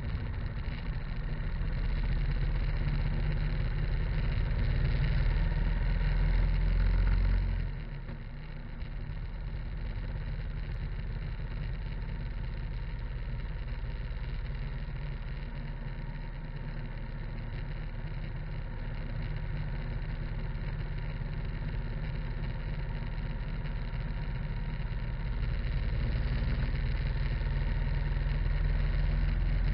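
Harley-Davidson motorcycle riding at road speed: engine and wind rumble heard from low beside the front wheel. The rumble drops suddenly about seven and a half seconds in, then builds again near the end.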